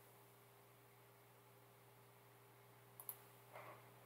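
Near silence with a faint steady low hum, broken about three seconds in by a quick double click of a computer mouse.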